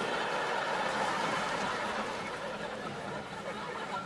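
Studio audience laughing, slowly dying down.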